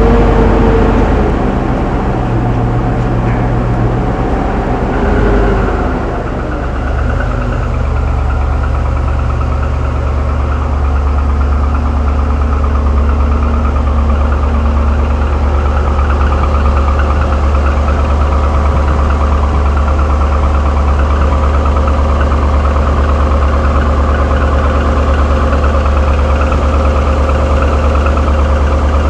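2007 Trailblazer SS's 6.0-litre LS2 V8 idling just after start-up, its idle dropping and settling about six seconds in, then running steadily. Its rattle is what the owner takes for piston slap, which GM calls normal.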